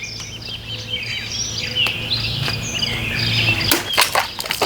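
Two quick slashes of a fully serrated Cold Steel Talwar folding knife through bottles: sharp hits close together near the end, with birds chirping throughout.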